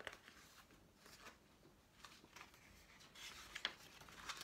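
Soft rustling of a paper page being turned in a large picture book, louder near the end.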